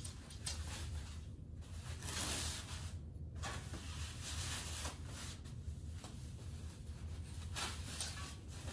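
Rustling and crinkling of a protective wheel cover as it is pulled off a new bicycle wheel, in several separate bursts.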